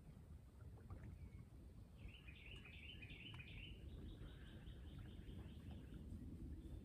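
Quiet outdoor ambience with a low, steady rumble, and a songbird singing a fast trill of repeated notes from about two seconds in until about five seconds in.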